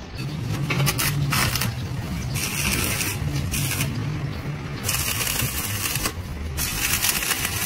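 Stick welding arc crackling and hissing in spells of about a second each on a steel excavator bucket plate, over a steady low hum. A few sharp knocks come about a second in.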